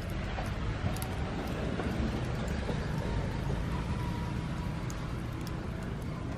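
A wood fire crackling now and then under a grill of squid, with a few sharp faint snaps over a steady low outdoor rumble.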